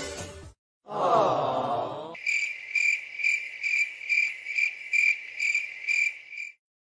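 Cricket chirping: a steady, high, even chirp pulsing about three times a second, which stops near the end. Before it, about a second in, there is a short wavering sound.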